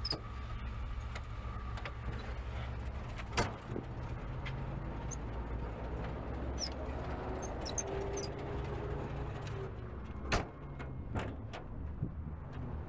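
Jeep Wagoneer engine idling with a steady low rumble. A few sharp knocks sound over it, the loudest about three seconds in and about ten seconds in.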